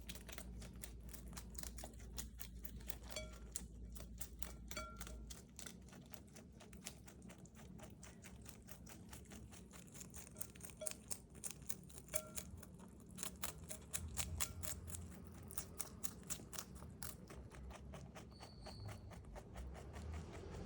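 A rabbit chewing fresh bok choy: a rapid, steady run of small crisp crunches, several a second.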